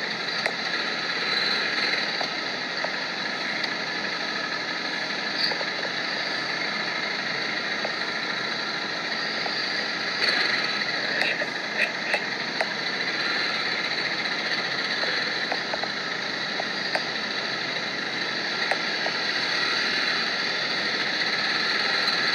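Motorcycle engine running steadily, with a few short clicks.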